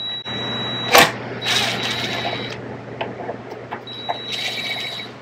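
Cordless drill-driver on its lowest speed setting whirring in short runs as it backs Phillips screws out of a track saw's dust shroud, with a sharp click about a second in.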